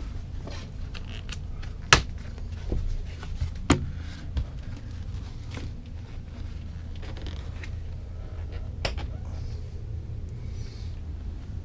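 Sharp knocks and light clicks from hands working at a fitting under the cabin's overhead valance. The loudest knock comes about two seconds in, with others near four and nine seconds, over a steady low hum.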